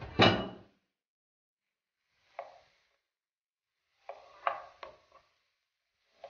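Wooden spatula stirring and pressing mashed potato in a nonstick frying pan, knocking and scraping against the pan. A loud clatter comes at the start, then a single knock a couple of seconds in and a short run of knocks around four to five seconds in.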